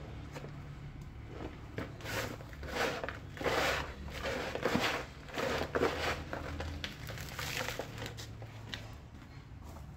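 A hand scooping and scraping loose potting soil out of a plastic flowerpot and dropping it into a plastic basin: irregular crumbly rustles and scrapes, busiest in the middle of the stretch.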